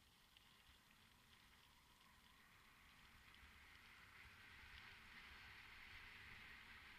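Faint riding noise from a helmet camera on a descending mountain bike: an even rushing hiss of wind and tyres over a low rumble, slowly growing louder from about halfway through as the bike gathers speed.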